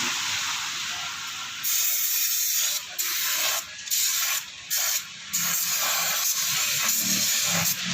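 Pressurised spray hissing loudly, stopping and restarting four times in quick succession in the middle.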